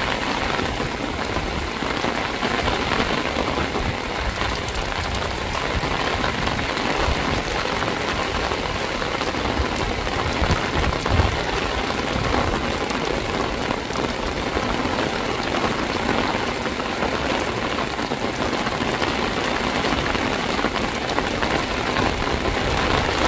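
Heavy rain falling steadily onto a rooftop terrace, with water dripping and streaming off the roof edge.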